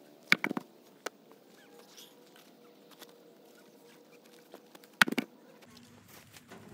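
A heavy timber sleeper being handled and let fall: a quick cluster of three or four wooden knocks a fraction of a second in, and another like it about five seconds in.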